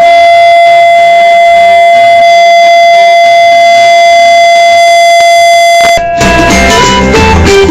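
Loud, steady single tone from a loudspeaker, turned up to drive a glass into resonance until it breaks, with quiet background music underneath. The tone cuts off about six seconds in and strummed guitar music takes over.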